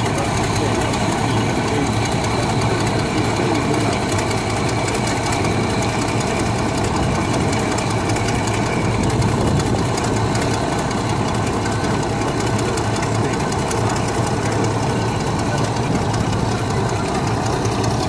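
Engine of a large vintage steel-wheeled tractor running steadily under load as it pulls a plough, with a fast even beat. It runs easily, with no hint of labouring.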